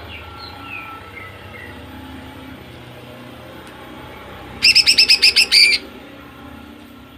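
Female green leafbird (cucak ijo) calling. A few thin falling chirps come near the start. About four and a half seconds in comes a loud, fast burst of about ten sharp repeated notes lasting just over a second: the rapid 'nembak' volley.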